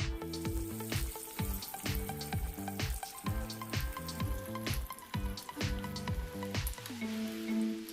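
Egg-coated snack pieces deep-frying in hot oil, giving a steady sizzle, with background music with a steady beat over it.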